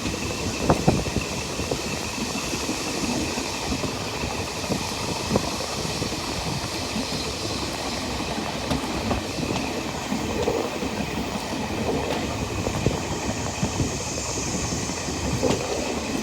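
Taiwan Railway Chu-Kuang express train running along the track, heard from the rear observation area of its parlour car: a steady rolling rumble of wheels on rail with scattered sharp clicks over rail joints, two close together about a second in.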